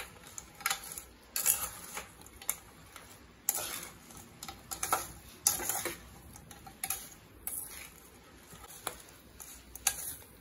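Steel spatula scraping and clinking against a metal kadai in irregular strokes, stirring fried gram-flour sevu to coat it in sugar syrup.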